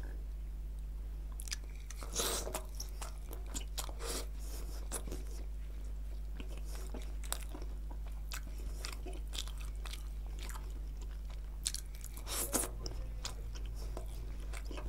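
Close-miked eating sounds of a man chewing and biting bhature and mutton curry, with scattered sharp clicks and wet mouth noises. A steady low hum runs underneath.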